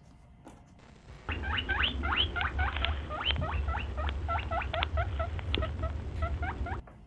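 A fast run of short, high, rising squeaks, about four a second, like a small animal squeaking, from an added sound-effect clip. It starts about a second in with a low rumble underneath and cuts off suddenly near the end.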